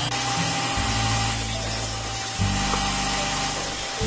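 Belt grinder running and grinding a steel knife blank, a steady hiss with a faint whine, over background music whose bass notes change every second or so.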